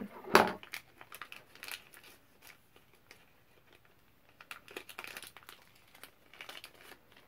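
Paper wrapping around a small enamel pin crinkling and tearing as it is unwrapped by hand, in a string of short, irregular crackles. The loudest crackle comes just after the start.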